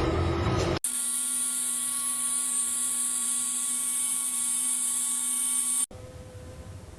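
A low mechanical rumble that cuts off abruptly, then a steady, high-pitched whine of a small electric motor, like a tiny power drill or driver running, for about five seconds before it also cuts off suddenly.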